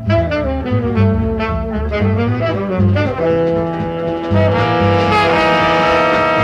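Big-band jazz: brass and saxophone sections playing a moving, bending ensemble line, then settling into long held chords that swell fuller and louder about halfway through.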